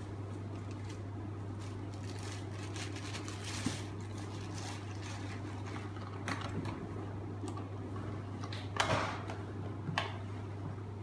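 A steady low hum with a few scattered faint clicks and rustles; the loudest rustle comes about nine seconds in.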